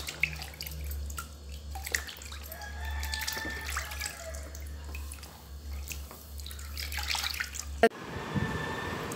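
Hands swishing and rubbing vegetables in a tub of water, with small splashes and drips, over a steady low hum that stops near the end.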